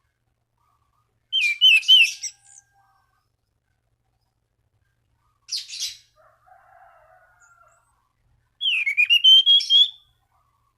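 Anis cendana thrush singing in three short phrases of quick, sweeping whistled notes. This is its song for calling out rival birds.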